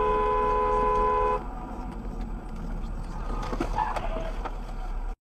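Two-tone car horn held for about a second and a half, then released, over the steady hum of a moving car. A couple of faint knocks follow about three and a half seconds in, and the sound cuts off abruptly near the end.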